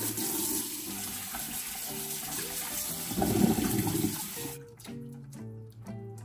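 Kitchen tap running into the sink while clams are rinsed, swelling louder about three seconds in and shutting off about four and a half seconds in. Background music plays throughout.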